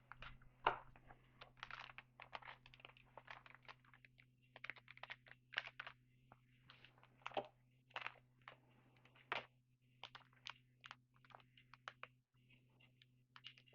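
Faint, irregular clicks and rustles of trading cards and their packaging being handled and flipped through, over a low steady hum.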